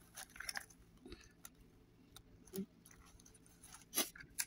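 Quiet eating sounds: chewing, with scattered light clicks and scrapes of a metal spoon against a small glass dish. The loudest click comes near the end.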